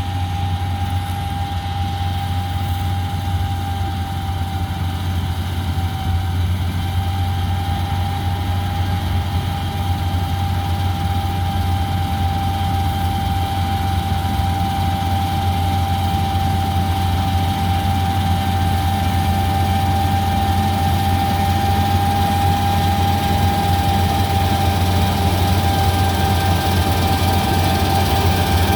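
Heavy farm machinery running steadily: a constant deep engine drone with a single steady high whine over it.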